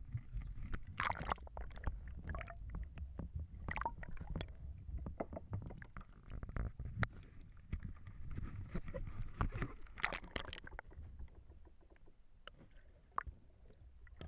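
Seawater slapping and splashing against a camera at a kayak's waterline, over a low rumble of water buffeting the housing. Louder splashes come about a second, four seconds and ten seconds in, and it all grows quieter near the end as the lens goes under the surface.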